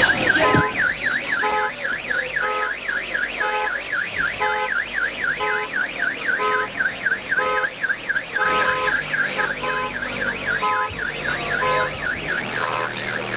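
An electronic siren warbling quickly up and down, about four to five sweeps a second, with short lower tones pulsing about once a second beneath it.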